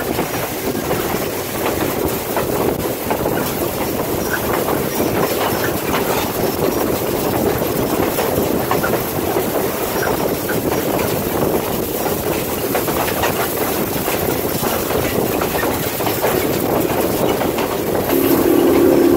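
Passenger train rolling along the track: a steady rumble and rattle with wheels clicking over the rail joints. A brief steady low tone sounds near the end.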